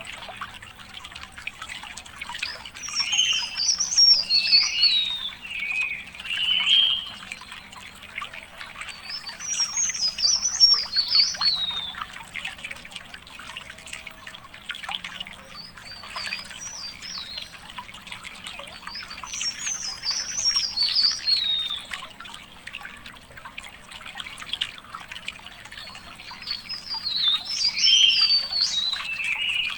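A songbird sings a rapid warbling phrase that rises and falls, repeated every eight to nine seconds, with lower chirps alongside some phrases. A faint trickle of water runs underneath.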